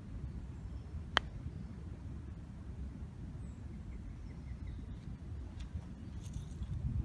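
A golf club strikes the ball once about a second in, a single crisp click with a short ring. Wind rumbles on the microphone throughout.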